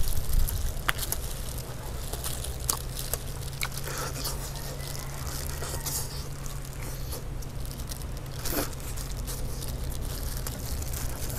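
Eating sounds: honey-roasted chicken being torn apart by hand and chewed, with scattered small crunches and clicks. A steady low hum runs underneath.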